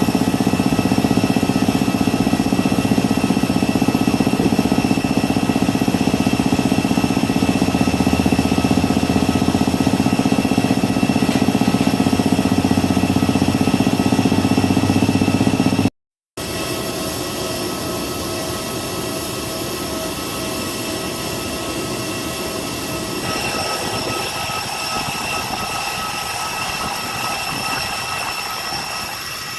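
Airliner's jet engines running with a steady high whine over a loud rush, broken by a cut about 16 seconds in, after which it is slightly quieter and the whine shifts in pitch a few seconds later.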